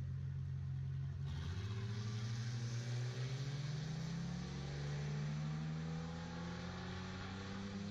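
Two cars launching off the drag-strip start line, a Ford Mustang and an SUV, engines idling and then accelerating hard about a second in. The engine pitch climbs in steps as they shift up through the gears and pull away.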